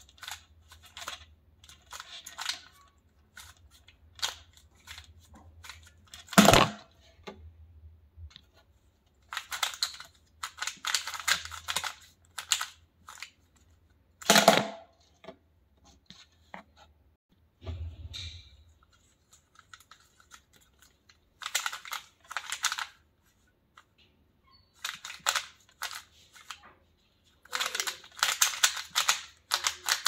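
Stickerless 3x3 speed cube being turned by hand: bursts of rapid plastic clicks and clacks as the layers are spun through permutation algorithms, with short pauses between bursts. Two louder single knocks stand out, about six seconds in and again near the middle.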